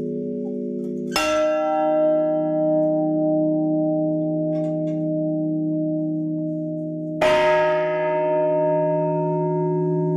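Church bells tolled by hand with single strokes for a funeral toll: two strikes about six seconds apart. Each leaves a long, slowly fading ring over the steady hum of the bells struck before.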